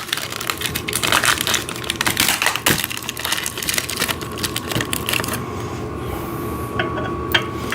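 Dense, rapid clattering and clicking of metal exercise-machine parts and assembly hardware being handled and fitted, for about five seconds. After that it goes quieter, with a couple of single clicks near the end.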